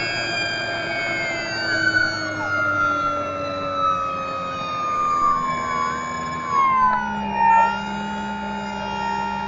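Electric motor and propeller of an FMS Cessna 182 RC model plane whining in flight, heard from on board. Its pitch slides steadily down over several seconds, dips more sharply about three-quarters of the way through, then holds steady.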